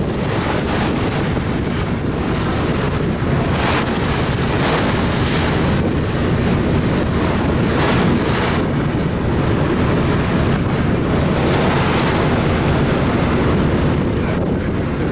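Wind buffeting the microphone, a loud rushing with stronger gusts every second or two.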